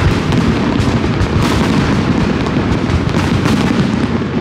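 Aerial fireworks going off in a dense barrage: a rapid, unbroken run of overlapping bangs and booms.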